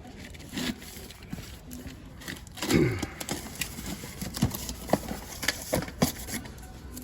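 Light clicks and knocks of carded toy cars and their packaging being handled, with one louder short sound about three seconds in whose pitch drops.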